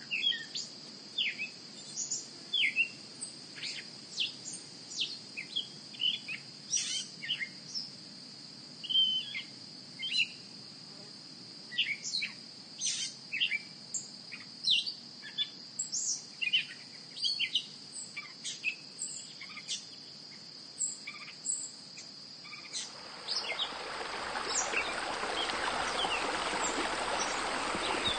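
Outdoor nature ambience: a steady high insect trill with many short bird chirps scattered throughout. About 23 seconds in, the sound of running water fades in and grows louder, continuing to the end.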